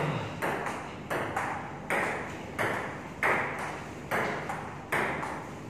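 Table tennis rally: the celluloid ball clicks off rubber paddles and the table in a steady back-and-forth, about eight strikes at under a second apart, each ringing on briefly in the hard-walled room.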